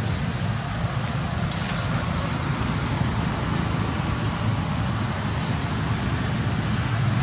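Steady outdoor background noise: a continuous low rumble with a fainter hiss above it.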